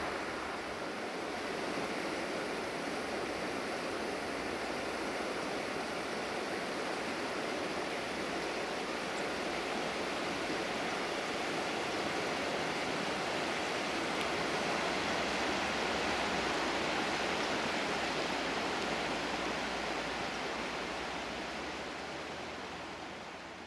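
A steady, even rushing noise that fades out near the end.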